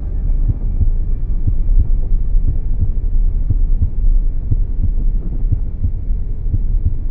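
A heartbeat: repeated low thumps over a steady low hum.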